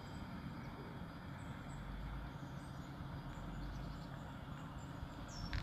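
Quiet lakeside ambience: a steady low rumble with a few faint bird chirps over it.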